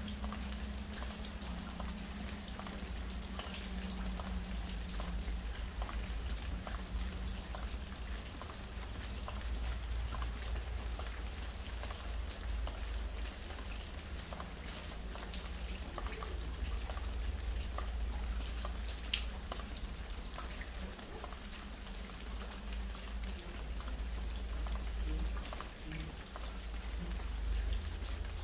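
Light rain falling, with water dripping from a roof edge in many small, irregular taps over a steady hiss. A low rumble runs underneath throughout.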